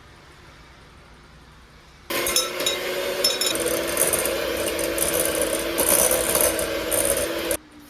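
A small electric motor runs with a rattling whir for about five and a half seconds, switched on about two seconds in and cut off suddenly near the end.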